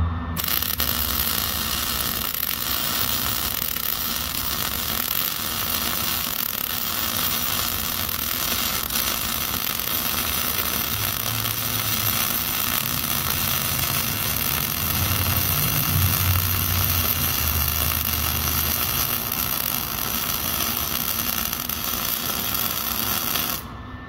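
Wire-feed welder arc crackling steadily while a bead is run around a steel exhaust pipe joint at a braided flex pipe. The crackle starts just after the beginning and cuts off shortly before the end.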